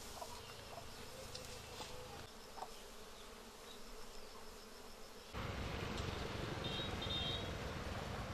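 Swarm of honeybees buzzing as a steady hum over a hollow log hive; about five seconds in the sound jumps louder.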